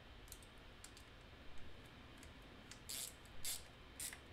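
Hand socket ratchet clicking in short strokes as a bolt is tightened: a few faint clicks in the first second, then three louder ratcheting strokes in the last second and a half.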